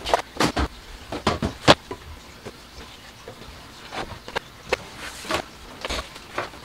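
Plastic tubs, bottles and jars being picked up and set down on a kitchen countertop: a string of irregular knocks and clatters, the sharpest about a second and a half in.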